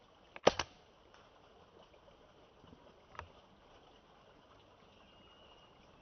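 Sharp double click from a PCP air rifle about half a second in, then a fainter click about three seconds in, over a steady low hiss. A faint, thin, high whistle sounds near the end.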